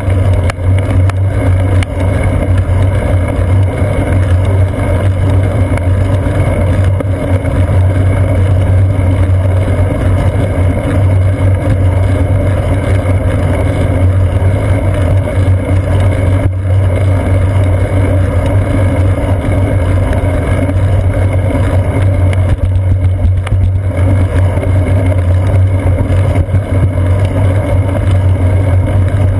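Steady, loud rumble of road vibration and wind noise picked up by a seat-post-mounted GoPro Hero 2 action camera on a moving bicycle, with a constant low drone.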